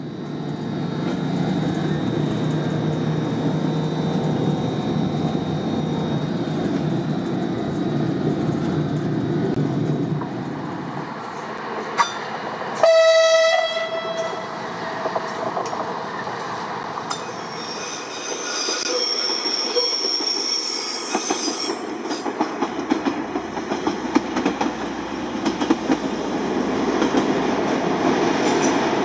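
Siemens Desiro diesel railcar running: a steady low engine drone for the first third, then one short horn blast a little before halfway. Later its wheels squeal in high tones for a few seconds, and near the end it rumbles past with rapid clatter from the wheels over the rails.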